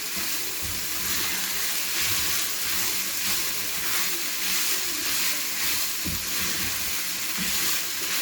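Minced chicken and onion filling sizzling in a hot pan while it is stirred, a steady frying hiss with a couple of soft knocks about six and seven seconds in.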